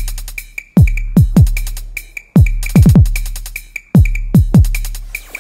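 Electronic intro music: deep kick drums that fall in pitch, over a steady low bass, with quick ticking hi-hats and a short high blip repeating in time.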